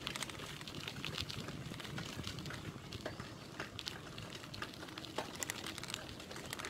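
Bicycle riding along a wet road: irregular light crackling and clicking from the tyres and rattling parts over a steady low rumble.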